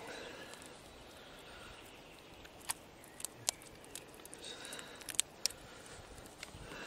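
Quiet handling sounds as a European perch is worked out of a monofilament gill net in an inflatable boat, with a handful of short, sharp clicks and ticks.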